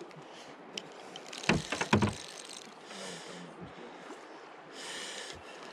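Drift boat on a river: a steady wash of water around the hull, with a quick cluster of sharp knocks about a second and a half in.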